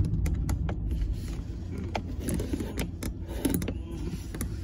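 Car cabin noise while driving slowly: a steady low rumble of engine and tyres, with scattered small clicks and rattles at irregular moments.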